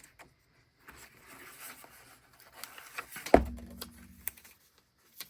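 Paper and sticker sheets rustling as stickers are peeled and handled, with small clicks and one sharp knock on the desk a little over three seconds in.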